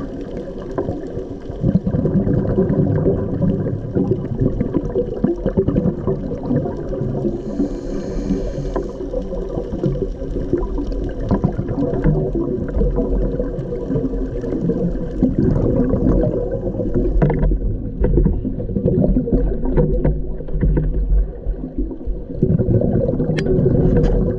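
Underwater sound on a scuba dive: bubbles gurgling and rumbling over a steady hum carried through the water, with a short hiss about eight seconds in.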